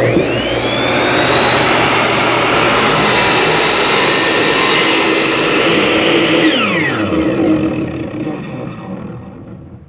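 Ryobi sliding compound miter saw starting up, its motor whine rising quickly to full speed, then running as the blade trims the edge of a hardwood cutting board. After about six and a half seconds it is switched off and the whine falls steadily as the blade spins down.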